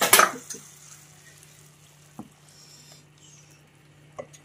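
Hot ghee and ghee-roasted cashews hitting a pot of payasam: a sizzle at the start that fades away within about a second. Then two light taps, near the middle and near the end.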